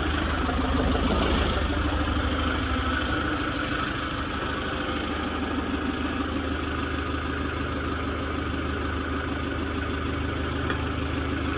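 Forklift engine idling steadily, a low even hum.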